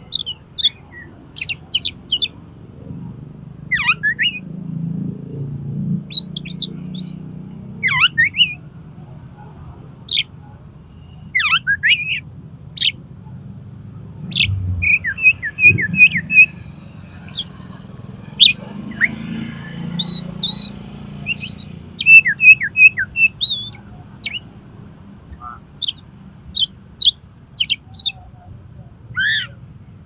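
Oriental magpie-robin (kacer) singing: a varied string of short, sharp whistled notes and quick falling sweeps, with a couple of rapid runs of repeated notes. A faint low hum sits underneath.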